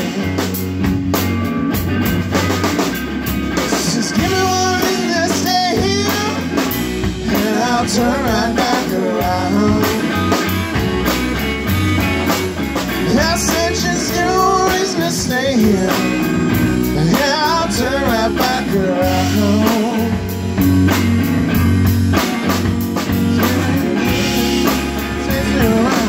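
Live blues-rock band playing an instrumental break: electric guitars, bass and drum kit, with a lead line of bending, wavering notes over a steady beat.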